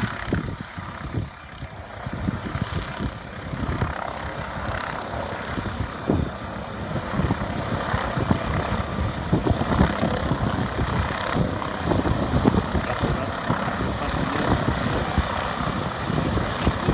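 Helicopter rotor and engine noise, growing louder over the first several seconds as it approaches, with an uneven low rumble.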